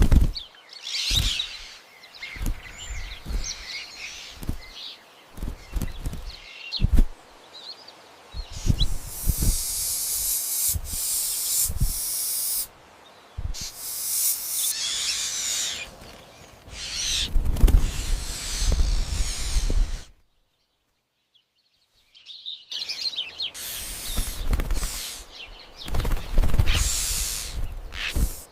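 Birds calling in short chirps, mixed with bursts of hiss-like noise and low thumps. The sound drops out for about two seconds about two-thirds of the way through.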